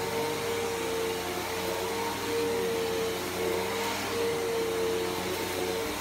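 Upright bagless vacuum cleaner running on carpet, its motor giving a steady whine over a rushing airflow as it is pushed across the pile.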